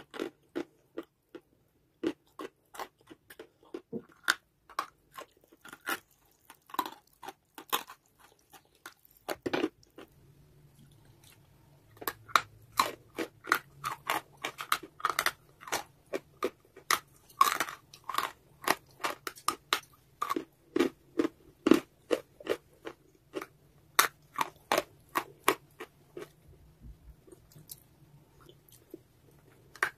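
Hard, crumbly pink chalk bitten and chewed close to the microphone: an irregular series of sharp, dry crunches, sparse at first and coming thick and fast from about twelve seconds in.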